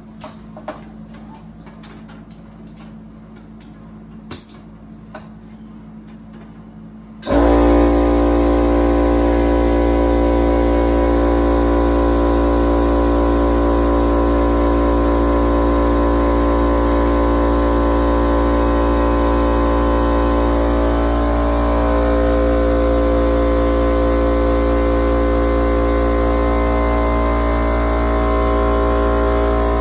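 Electric air compressor kicking on about seven seconds in and running steadily with a loud, even hum, supplying air for the airline to the car's air-suspension bags. A couple of light clicks come before it.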